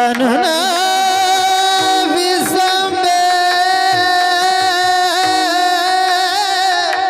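A kirtan singer slides up and holds one long, very high note with a slight vibrato over a steady drone, the pakhawaj falling silent under it.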